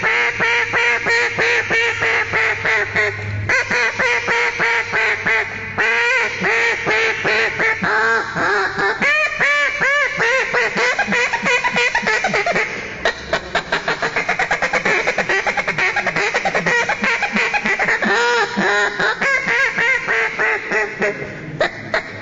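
Duck call blown by hand in a long calling sequence: rapid runs of quacks with a few short breaks, the sequence used to work a responding duck down to the water.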